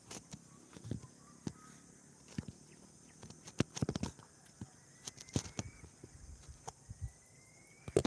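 Irregular light thumps and rustles of footsteps on grass, with a bird giving a short rising whistle twice in the second half.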